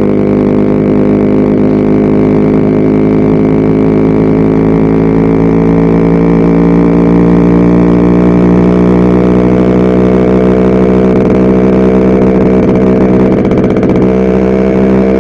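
Yamaha RX100's single-cylinder two-stroke engine running steadily, its pitch rising a little and then holding. The rider suspects the engine is running a bit lean.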